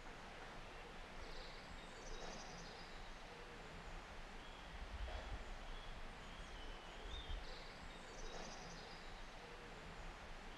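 Quiet woodland ambience: scattered faint bird chirps over an even hiss and a low, uneven rumble.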